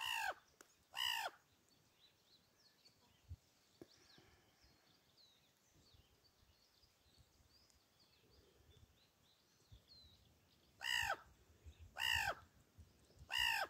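A crow cawing: two harsh caws at the start and three more near the end, each short and falling in pitch. Faint high bird chirps sound in the quiet between them.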